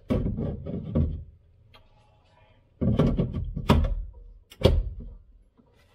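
Plastic clunks and knocks as an empty battery is handled and pushed into a wall-mounted charger: a cluster of knocks in the first second, another about three seconds in, and a last sharp knock near the end.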